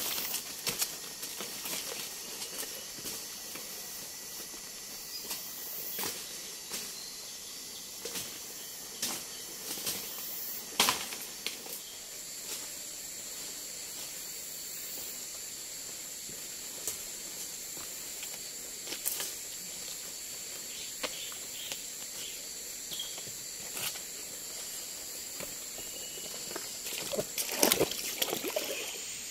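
Steady high-pitched drone of forest insects, with scattered sharp clicks and knocks throughout. A brief cluster of louder knocks and rustling comes near the end.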